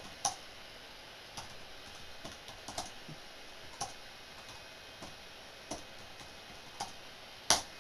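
Computer keyboard being typed on slowly: separate, unevenly spaced keystrokes, with one louder key click near the end.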